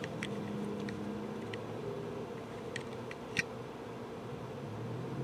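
Steady low room hum, like a fan or other running machine, with a few faint clicks and taps about one and a half, three and three and a half seconds in.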